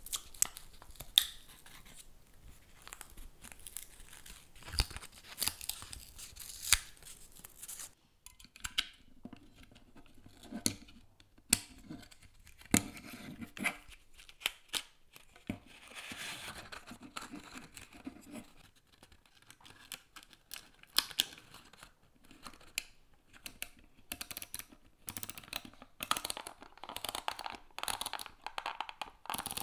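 Paper tearing and crinkling as the seal of a 127 film roll is pulled off, then rustling and many scattered sharp clicks as the film spool is fitted into a Kodak Baby Brownie's Bakelite body.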